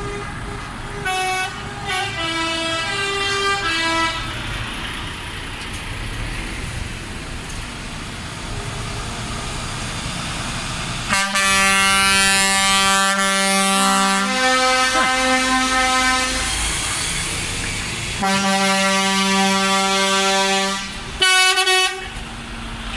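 Air horns of lorries driving past in a slow convoy: a few short toots at shifting pitches in the first seconds, then long loud horn blasts about eleven seconds in and again about eighteen seconds in, with a short blast near the end, over the steady rumble of diesel truck engines.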